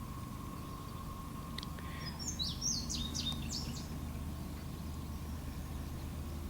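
A songbird sings a short burst of quick, high chirps about two to four seconds in, over a steady low rumble. A faint steady high tone sounds during the first two seconds.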